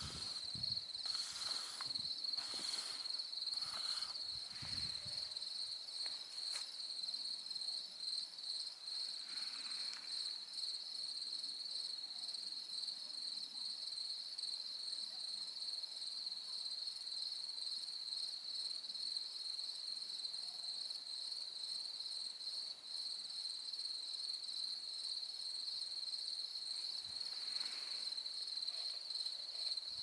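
Crickets chirping in a steady chorus at night, a fast even trill of high chirps. A few soft brief rustles or knocks come in the first five seconds.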